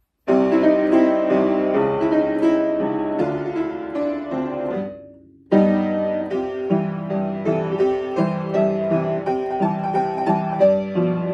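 Piano playing a children's song melody with chords in the left hand; a phrase ends on a held chord that fades out about five seconds in, and the playing starts again half a second later.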